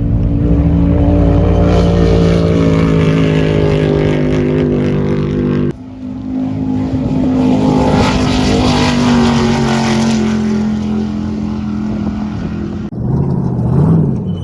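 Off-road race car engines running loud and steady, in three abruptly cut segments. In the middle segment the engine note slowly drops while a rush of noise swells and fades.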